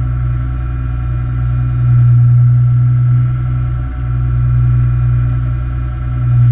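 Fishing boat's engine and machinery running with a steady low hum and a few thin steady tones, swelling louder twice.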